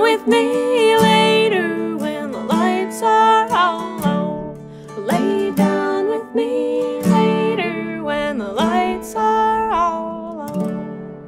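Acoustic folk waltz: an acoustic guitar strumming, with a melody above it that slides between notes. The final chord rings out and fades near the end.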